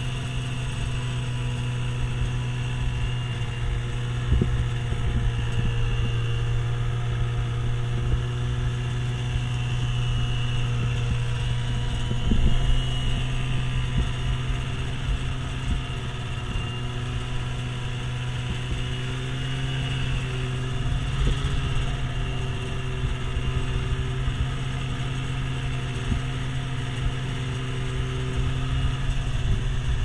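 Polaris Indy 500 LX wide-track snowmobile's two-stroke twin engine running steadily at low speed in low range while packing trail through deep fresh snow, with a few brief knocks along the way.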